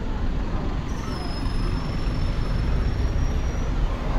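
Street traffic with a steady low rumble, and a thin high-pitched tone that starts about a second in and holds for nearly three seconds.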